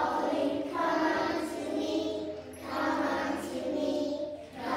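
A group of preschool children singing a song together, in phrases separated by short breaths.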